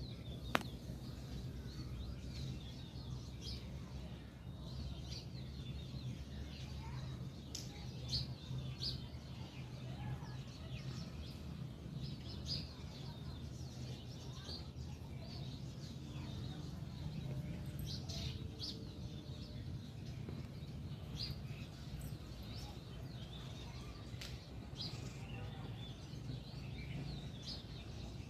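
House sparrows chirping: many short chirps scattered irregularly over a steady low hum, with a single sharp click about half a second in.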